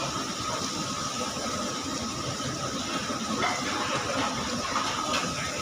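A steady mechanical hum and hiss with a faint, thin high whine running through it.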